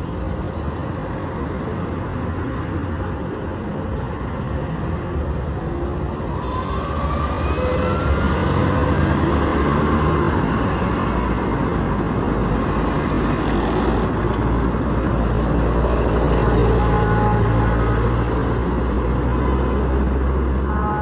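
Road traffic: vehicle engines running, louder from about eight seconds in, with one engine rising in pitch partway through.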